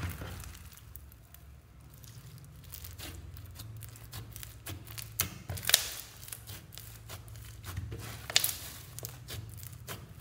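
White slime with glitter slime pieces mixed in, being kneaded and pressed by hand: a dense run of small crackles and clicks as it stretches and tears, with a few louder pops about five to six seconds in and again past eight seconds.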